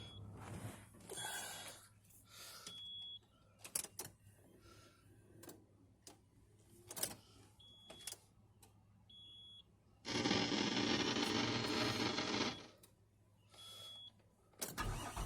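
Short high electronic beeps sound several times among scattered clicks, and a loud rushing noise lasts about two and a half seconds past the middle. Near the end the starter begins cranking the 2000 Nissan Quest's V6 with a rhythmic churn; the engine cranks without catching because it has fuel but no spark.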